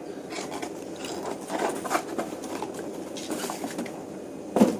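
Rustling and crinkling of product packaging as aquarium items are handled, with irregular small scrapes and taps and one sharper knock near the end.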